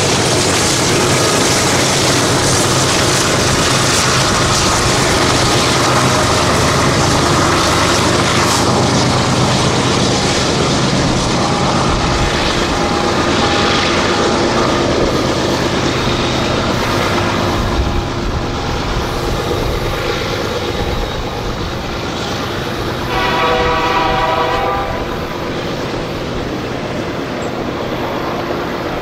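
BNSF diesel locomotives pass and pull away, followed by double-stack container cars rolling by with steady wheel-on-rail noise. About three-quarters of the way through, a locomotive horn sounds briefly with several tones.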